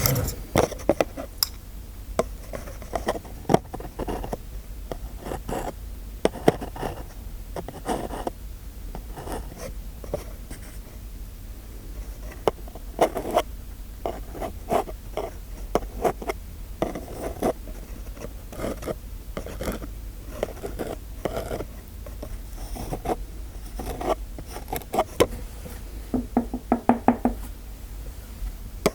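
Close-miked ASMR tapping, clicking and scraping of small hard objects, irregular and unhurried, with a short rapid rattle near the end.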